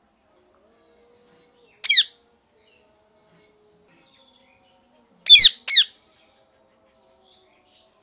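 Rose-ringed parakeet giving three short, loud screeching calls: one about two seconds in, then two in quick succession about three seconds later.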